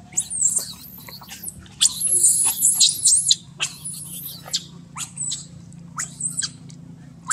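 Infant macaques squealing in high-pitched, wavering cries. There is a dense, loud run of squeals about two seconds in, then shorter squeaks every second or so.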